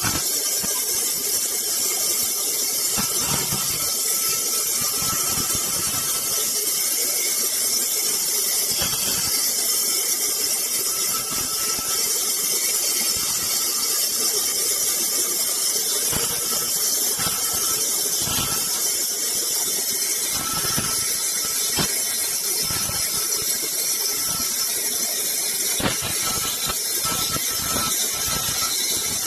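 Sawmill saw cutting wood: a loud, steady, high-pitched hiss and whine of the blade running through timber.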